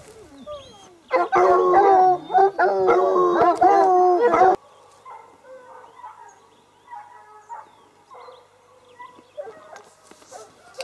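Several hounds howling and bawling together at close range, their voices overlapping and bending in pitch. About four and a half seconds in the sound cuts off abruptly, leaving a much quieter stretch with only faint calls.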